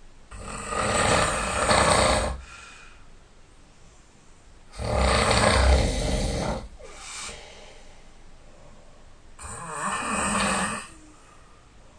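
A sleeping person snoring loudly: three long, rattling snores, each about two seconds, coming every four to five seconds, with a fainter breath between them.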